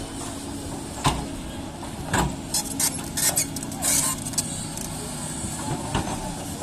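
JCB excavator's diesel engine running steadily under load while it digs, with sharp knocks and clatter about one and two seconds in and a burst of them between about two and a half and four seconds.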